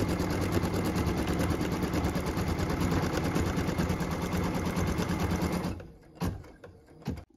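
Embroidery machine stitching a tack-down line in rapid, steady needle strokes, which stop about three-quarters of the way through. A few separate clicks follow.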